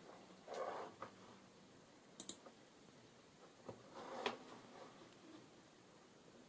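Faint clicks of keys being pressed on a laptop keyboard, with a quick double click a little over two seconds in, and soft rustles of handling around them.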